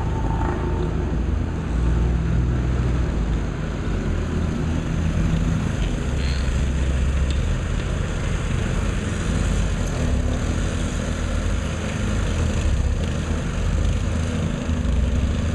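Construction machinery's engine running steadily, a low continuous rumble.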